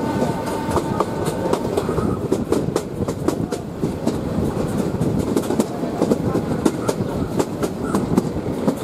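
Bangladesh Railway passenger train rolling along the track, its wheels clattering over the rail joints in a rapid, uneven run of clicks. A faint steady whine sounds over the first second and a half.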